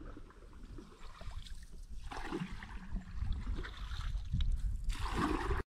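Water sloshing and lapping around a small boat, with wind rumbling on the microphone. The sound cuts out abruptly near the end.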